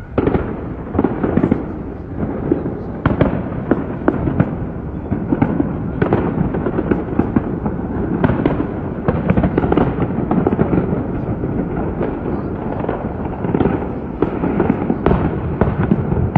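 Aerial fireworks display: many shells bursting in rapid, overlapping bangs with crackling, starting suddenly and running on densely.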